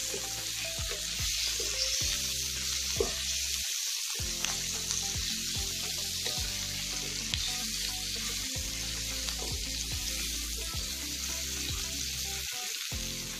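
Chopped onion, carrot and capsicum sizzling steadily in oil in a wok while being turned with a wooden spatula, with background music underneath.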